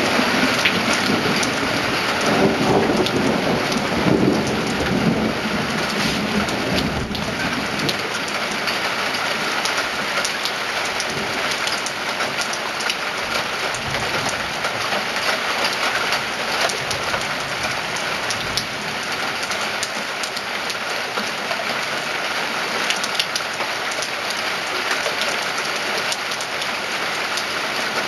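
Steady rain falling and pattering on surfaces, a dense, even hiss of drops, with a deeper low rumble during roughly the first seven seconds.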